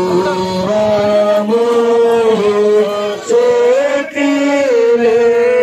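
A single voice singing a slow devotional Christian hymn of the cross in long held notes that glide between pitches.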